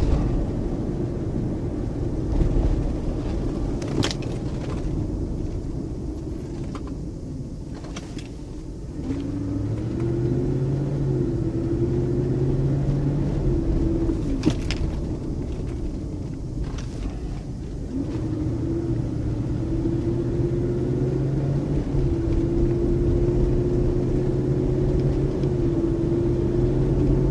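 Ford 4.6 V8 of a Lincoln Aviator running while driving: a low rumble that becomes a pitched drone about a third of the way in. The drone rises slowly under acceleration, dips twice, then holds steady, with a few sharp clicks. The owner suspects a bad exhaust leak or an EGR fault behind the engine noise.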